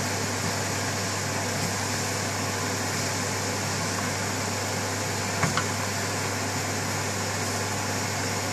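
Chickpeas and potatoes being stirred in a frying pan with a wooden spatula, over a steady hum and hiss; two light clicks about five and a half seconds in.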